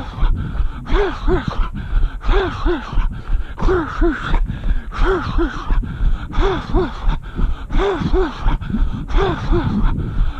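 Runner's heavy rhythmic breathing: short voiced puffs of breath coming in pairs about every second and a half, over the steady beat of running footsteps.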